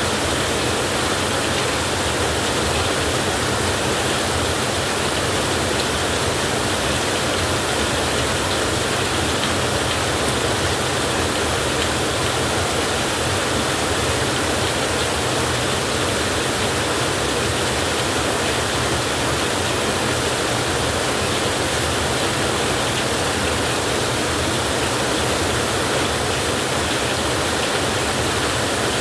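Heavy rain falling steadily: an even, unbroken hiss with no thunder claps.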